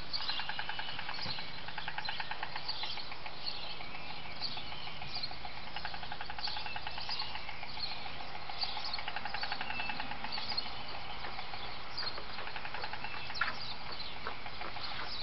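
White storks at a nest with young, giving a fast rattling in repeated runs of a second or two. Many short high chirps from small birds run through it.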